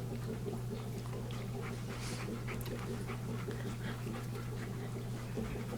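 Golden Retriever panting with quick, repeated breaths, over a steady low hum.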